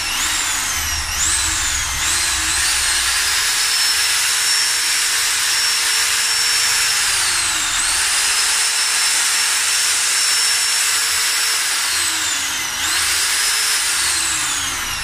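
Total 850 W corded impact drill running unloaded with an empty chuck, a steady high-pitched motor whine. The trigger is blipped a few times at the start, making the pitch jump up and fall, then held at full speed, easing off and speeding up again about halfway and once more near the end.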